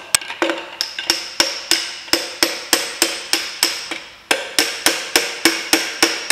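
Hammer blows on a metal bar, about three a second with a short pause about four seconds in, driving a piston up out of its cylinder bore in a Ford Mondeo Mk3 2.0 Duratec engine block. Each blow rings with a metallic ring.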